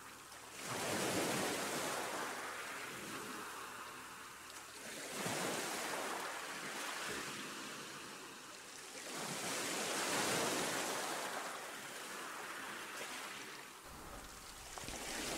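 A soft rushing noise that swells and fades in slow waves, about every four to five seconds, with no knocks or clicks.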